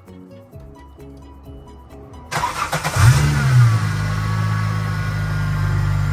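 Holden VY Commodore's 3.8-litre Ecotec V6 cranked on the starter and firing up about three seconds in. It flares briefly and then settles into a steady idle, running after the engine has been refitted and the fuel lines corrected. Background music plays for the first two seconds.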